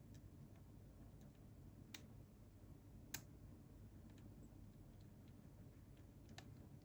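Small screwdriver driving in the tiny retaining screw that holds down an M.2 SSD: a few faint, sharp clicks of metal on metal, the clearest about three seconds in.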